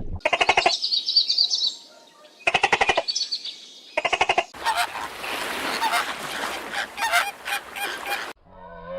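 Fowl calling: three short bursts of rapid, rattling pulsed calls, with a high warbling call between the first two, then a longer stretch of ragged calling that stops suddenly near the end.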